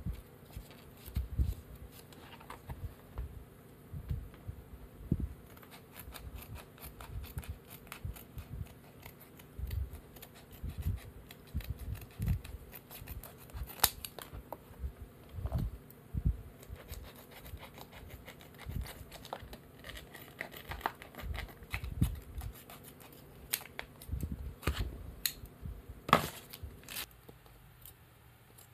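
Irregular taps, knocks and scratchy rubbing from hands working a bowling shoe's sole against the Velcro sheet being glued to it, with masking tape being handled, over a low steady hum.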